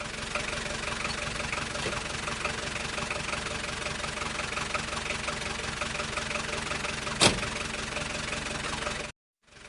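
Car engine running steadily, a taxi sound effect. A single sharp click comes about seven seconds in, and near the end the sound cuts out for a moment and starts again.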